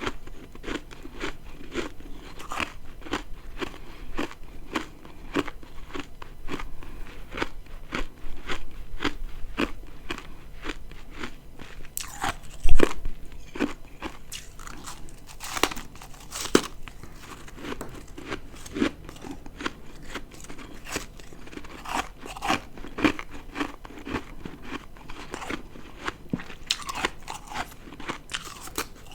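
Ice being bitten and chewed close to the microphone: a dense run of crisp crunches, with one much louder sharp crunch a little under halfway through.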